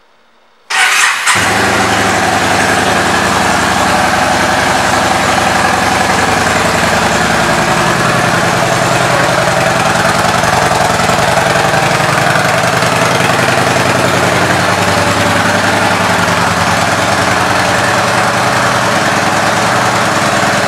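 2014 Yamaha Bolt's air-cooled 942 cc V-twin started, catching less than a second in, then idling steadily.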